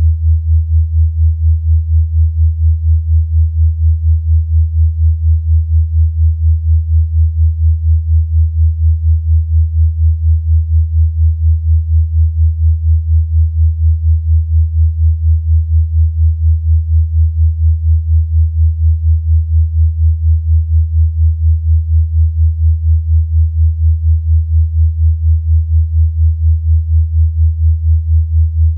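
Steady low electronic sine tone, a therapeutic 'healing frequency' for bruxism, pulsing quickly and evenly in loudness.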